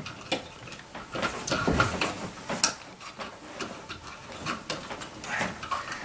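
Irregular clicks, taps and scraping of stiff electrical cable being pushed and worked into a cut-in electrical box through its wire-retaining tabs, a tight and fiddly fit.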